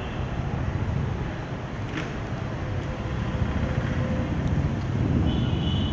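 Steady low rumbling background noise outdoors, much like wind on the microphone mixed with distant traffic, with a single short click about two seconds in.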